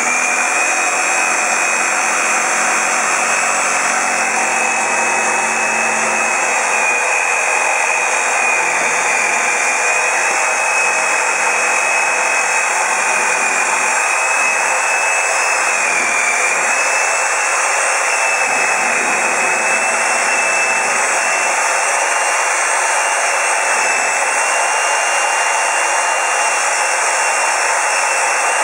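Scroll saw running steadily at speed with a constant high whine, its reciprocating arm flexing an HDMI cable clamped to it.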